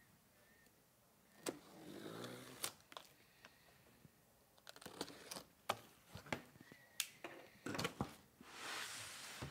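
Cardboard shipping box being handled and its top flaps opened: scattered light knocks and taps, with short stretches of cardboard scraping and rubbing, the longest near the end.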